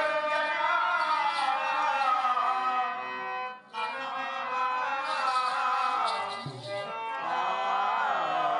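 A folk-theatre performer singing long, wavering lines over a steady harmonium-like drone, with a short break about three and a half seconds in.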